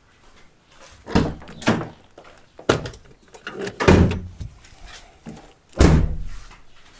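Car door of an Opel Astra G being opened and slammed shut: a series of about five clunks and thuds, the loudest in the middle and near the end.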